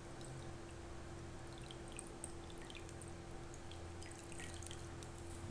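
Water-and-vinegar descaling mix trickling and dripping as it is poured, with small scattered splashy ticks over a faint steady hum.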